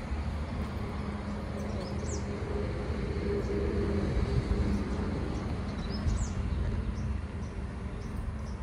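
Steady rumble of a car driving on the road, with two short bird chirps about two seconds and six seconds in.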